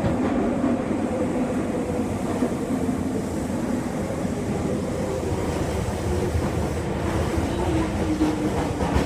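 Interior running sound of an Osaka Municipal Subway 70 series linear-motor train: a steady rumble of wheels and car body, with the drone of its early-type VVVF inverter underneath, which sinks slightly in pitch near the end.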